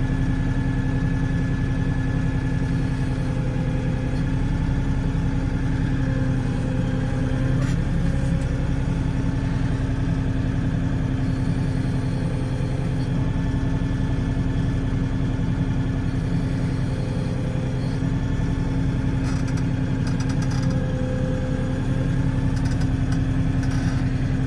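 LS XR4140 compact tractor's diesel engine running steadily at low revs as it creeps along with a round bale raised on the front forks, with a few light rattles near the end.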